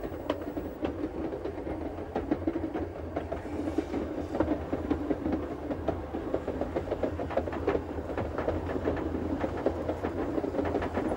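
Schynige Platte rack railway train running up the mountain line, heard from on board: a steady low rumble with frequent irregular clicks and knocks from the wheels and track.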